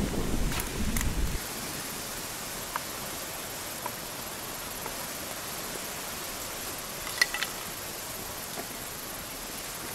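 Charcoal grill fire under skewered chicken wings: a low rumble that cuts off about a second and a half in, then a steady hiss with a few sharp crackles, the loudest about seven seconds in.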